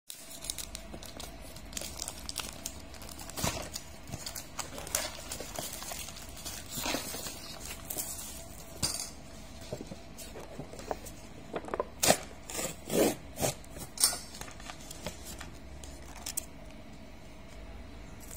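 Plastic packaging on a Samyang cup-noodle container crinkling and crackling as fingers pick at and peel the clear wrap, then work the lid off, in irregular sharp crackles and clicks. A louder run of crackles comes a little past the middle.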